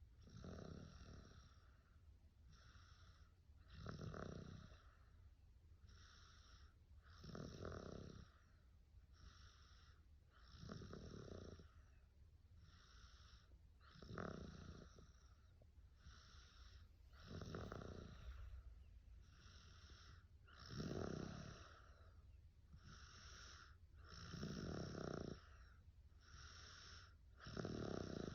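A person asleep and snoring softly in a slow, even rhythm, one snore about every three and a half seconds, each followed by a fainter breath.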